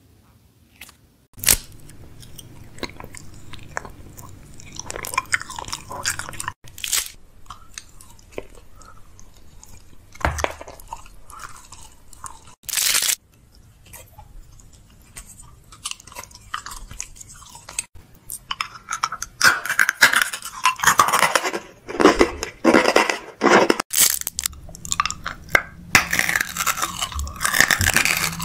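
Close-up chewing, biting and crunching of food. A few separate sharp bites in the first half, then rapid, loud crunching for the last third or so.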